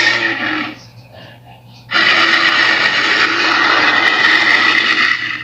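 Tyrannosaurus rex roar sound effects, loud and rasping. One roar trails off under a second in. After a short pause, a second long roar of about three and a half seconds starts and fades away near the end.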